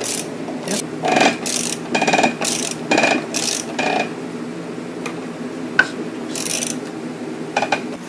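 Hand socket ratchet clicking in short repeated strokes, about two a second, as it turns a nut on an all-thread rod to pull bearings out of a torque tube. The strokes thin out after about four seconds, with only a couple more near the end.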